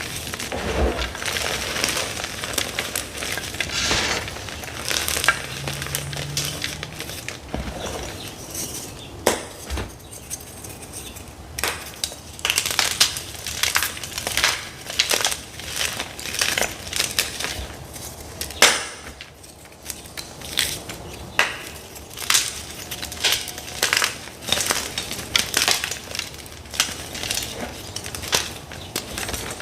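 Blocks of hard dyed gym chalk being crunched and crumbled close to the microphone: a dense run of gritty crunching over the first several seconds, then a steady series of separate sharp crunches and crackles.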